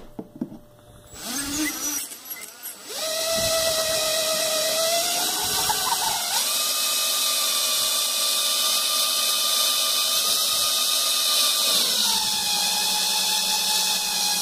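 Power drill with a step bit boring out a hole in a plexiglass sheet, run fast enough to heat the plastic. After a few short starts, the motor whines steadily from about three seconds in; its pitch steps up about halfway and drops back near the end.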